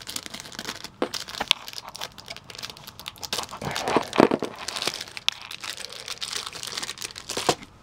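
Clear plastic wrapper of a baseball card rack pack crinkling and crackling as it is cut with scissors and then pulled open by hand, with many sharp little crackles and a few louder ones about four seconds in.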